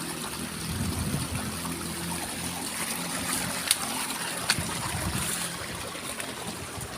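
River water trickling and flowing steadily, with two sharp clicks a little under a second apart midway through.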